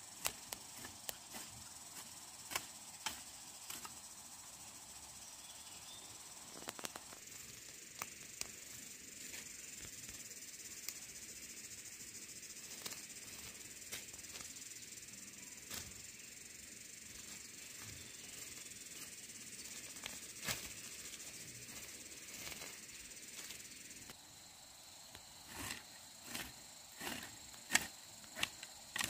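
Steady high-pitched insect chirring, with scattered light clicks and knocks of handwork over it that come thicker and louder near the end.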